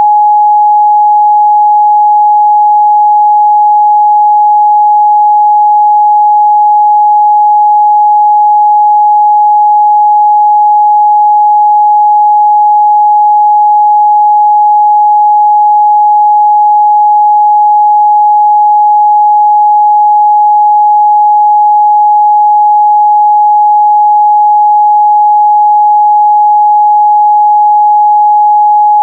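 Steady 838 Hz sine-wave test tone, a single pure pitch held unchanged at a loud, constant level.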